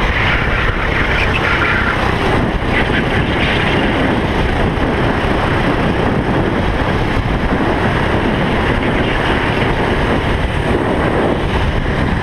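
Racing kart's engine running at speed, recorded by a camera mounted on the kart, with wind rushing over the microphone; steady and loud throughout.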